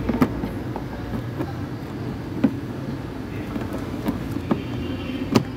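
A handful of short, sharp knocks and clicks inside the van's rear cabin over a steady low rumble, the loudest one near the end.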